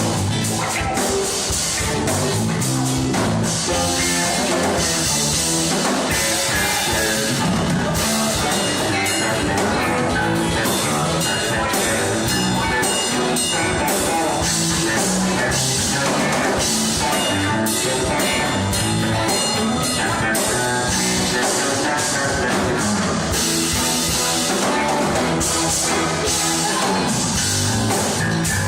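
Rock music with a drum kit and guitar, playing loud and steady.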